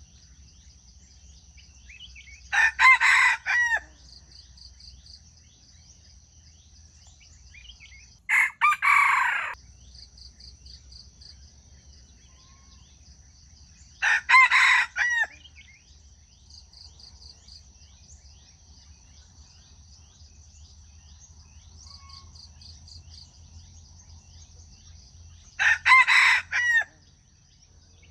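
Junglefowl rooster crowing four times, each crow short and broken, several seconds apart, over a steady high trill of insects.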